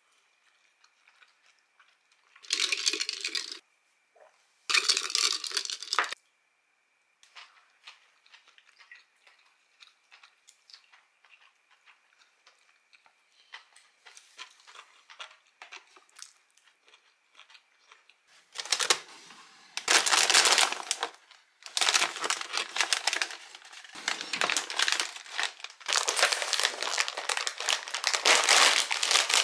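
Foil-lined potato-chip bag being pulled open and handled, loud crinkling rustles over the last ten seconds or so. Earlier, two short bursts of similar noise a few seconds in, then faint clicks of chopsticks against a dish.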